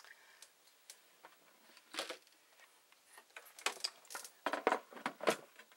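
Glass dome of a NuWave Oven Pro Plus being set back onto its base: a single knock about two seconds in, then a quick run of hard clinks and knocks near the end as the dome is seated.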